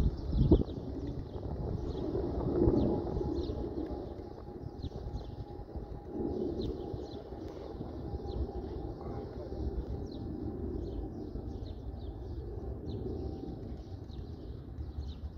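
Birds at a pigeon loft: many short high chirps throughout, with low coo-like swells, and two sharp knocks about half a second in.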